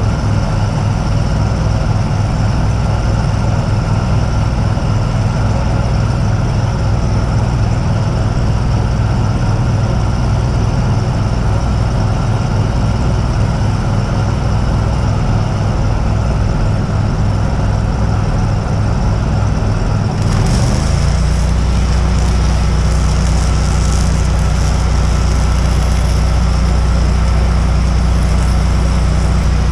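Engine-driven welder on a welding truck running steadily with an even low pulse. About two-thirds of the way in, its engine note steps up as if taking load, and a crackling hiss of an electric welding arc starts over it and continues.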